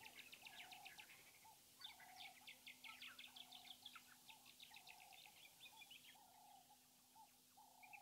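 Faint bird calls: a short call repeated about one and a half times a second under rapid trains of high chirps, which thin out near the end.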